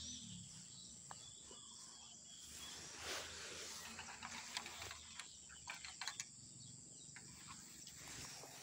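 Faint riverside outdoor ambience, with a brief rustle about three seconds in and a few light clicks a little later.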